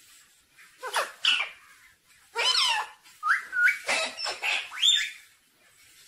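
Indian ringneck parakeet calling in a run of short, squawky, talk-like calls, with a couple of brief stepped notes and a rising whistle about five seconds in.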